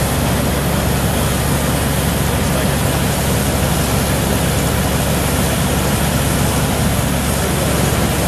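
Steady din of a building construction site: a continuous low engine hum of heavy machinery under a dense wash of noise.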